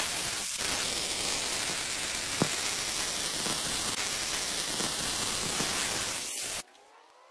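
MIG welding arc crackling and hissing steadily while a straight bead is run without weaving. It starts with a sharp snap as the arc strikes and cuts off suddenly about six and a half seconds in.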